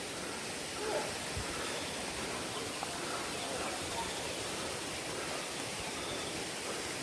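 Steady rush of water from a waterfall and river, with faint distant voices about a second in.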